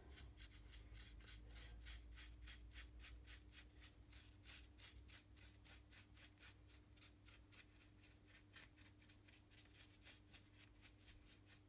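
Small paintbrush working thin paint into carved foam: a faint, rhythmic brushing at about four strokes a second. A faint steady hum runs under it.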